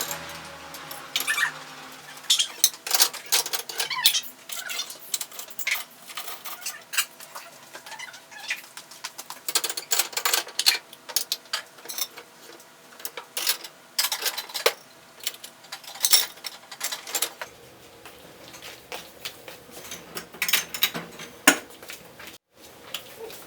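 Dishes and cutlery being handled, clinking and clattering in many short, irregular knocks.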